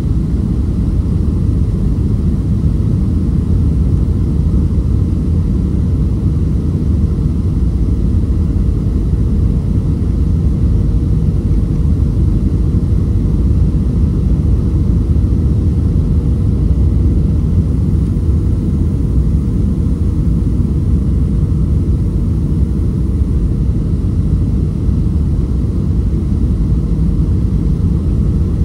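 Steady low rumble inside the cabin of a Boeing 737-500 on landing approach: its CFM56-3 engines and the rushing air, with a faint steady hum above it.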